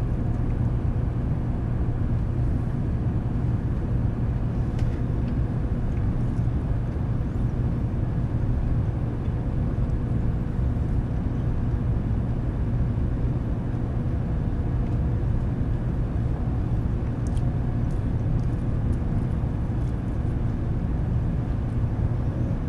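Steady low hum inside a 700-series Shinkansen car standing at a station platform, with a faint steady tone above it and an occasional light click.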